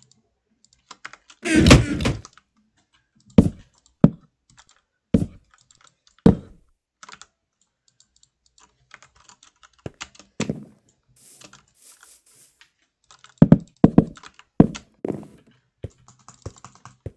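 A series of irregular clicks and thunks, some sharp and some with a dull low body, with a scatter of fainter small clicks in between.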